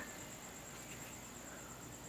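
Faint steady background hiss with a thin, high steady whine; no distinct handling sounds.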